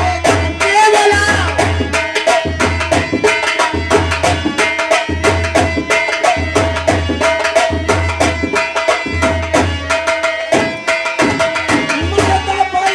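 Instrumental Bhojpuri folk accompaniment for birha singing: hand drums keep a fast, steady rhythm with a repeating deep bass stroke under a held melodic line.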